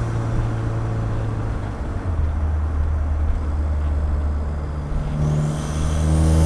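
Ford Fiesta ST's turbocharged 1.6-litre four-cylinder engine under way, heard at the engine bay and exhaust. The revs settle lower about two seconds in, then climb again near the end as the car accelerates, with a rising turbo whistle.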